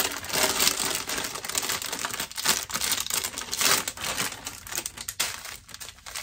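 Small plastic bags of diamond-painting drills crinkling and rustling in the hands, in irregular bursts that ease off near the end.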